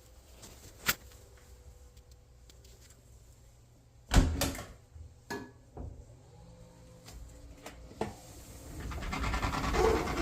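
A few clicks and a sharp knock, then an Electrolux clothes dryer starts up, its motor and drum running and growing louder over the last couple of seconds.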